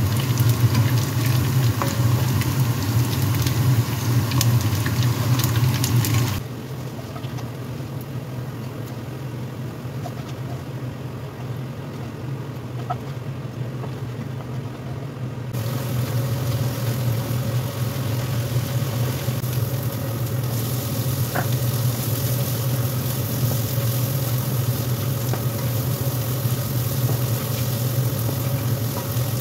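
Small anchovies and then chili sambal frying in oil in a pan, a crackling sizzle with the spatula stirring, over a steady low hum. The sizzle drops away for about nine seconds in the middle, then returns.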